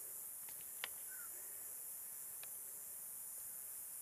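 Night insects chirring in a steady high hiss, with a few faint clicks; the sharpest click comes about a second in.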